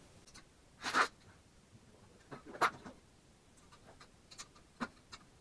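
Metal clinks and clatters of a wrench and small engine parts being handled while the valve cover bolts come out. A louder clatter comes about a second in, another a little before three seconds, and a few light ticks follow near the end.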